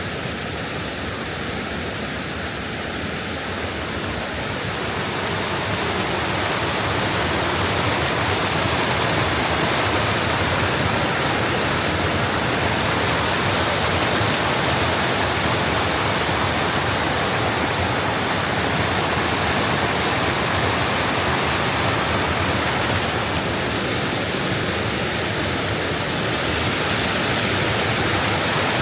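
Waterfall in a mountain gorge: a steady rush of falling water with no breaks, growing louder about five seconds in.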